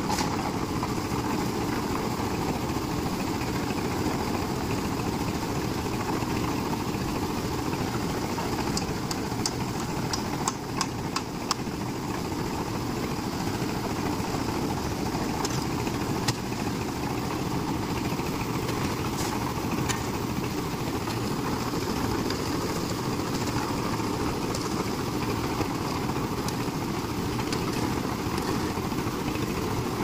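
Portable concrete mixer's engine running steadily. A few sharp clicks cut through it about ten seconds in and once more a few seconds later.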